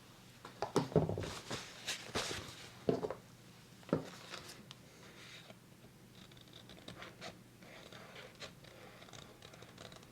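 Scissors cutting paper: a run of crisp snips in the first four seconds, then lighter, scattered clicks and paper rustling.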